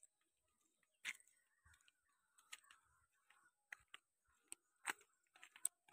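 Near silence with a few faint, irregular clicks and taps.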